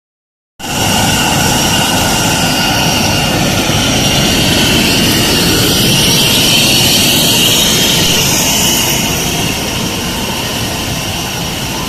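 A 2040 CNC router running with its vacuum-table pumps: a loud, steady whine with several high steady tones over a noisy rush. It starts suddenly about half a second in and eases a little after about nine seconds.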